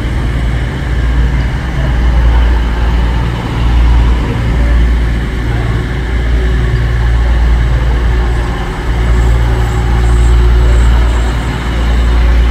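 EMR Intercity Class 222 Meridian diesel multiple unit moving past, its underfloor diesel engines giving a loud low rumble that swells and dips.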